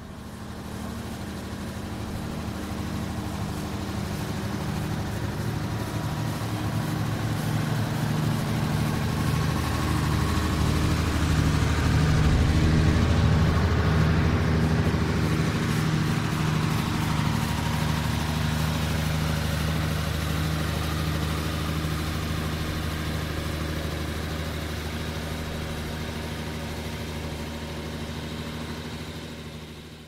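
Small truck's engine running steadily while reversing, growing louder toward the middle and then easing off.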